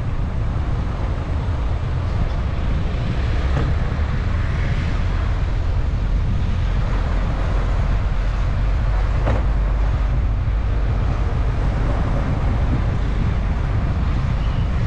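A car driving: a steady low rumble of road and wind noise, with a faint tick or two.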